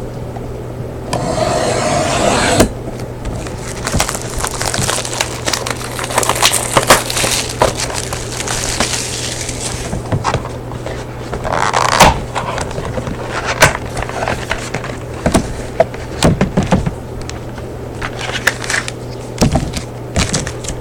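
A sealed box of trading cards being unwrapped and opened by hand: plastic wrapping crinkling and tearing, with scattered sharp clicks and taps of cardboard and packs being handled.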